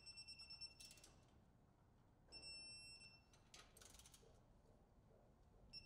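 Faint electronic beeps from a digital torque wrench signalling that the set torque has been reached as the control arm fasteners are tightened: two long, steady, high beeps about two seconds apart, with a few light clicks of the wrench between.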